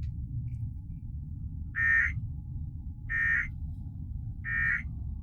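Emergency Alert System SAME end-of-message data bursts: three short, raspy digital squawks about 1.3 s apart, marking the end of the Amber Alert broadcast. A steady low hum runs underneath.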